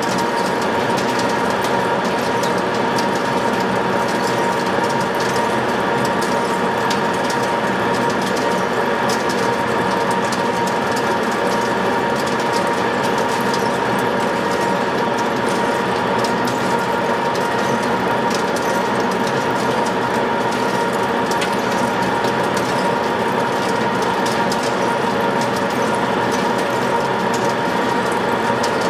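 WMW-Magdeburg DP3 facing lathe running, its gear drive giving a steady whine with a fine, rapid rattle over it.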